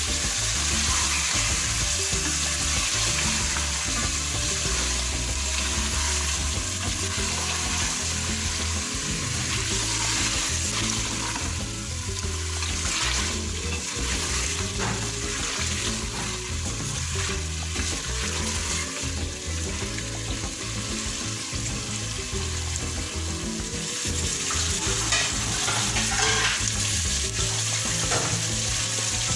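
Food sizzling as it fries in hot oil in a cooking pot, with a spoon scraping and stirring it now and then.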